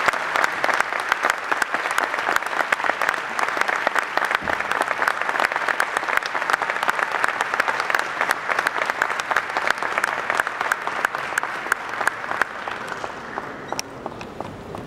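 Audience applauding, a dense steady clapping that thins out to scattered claps over the last couple of seconds.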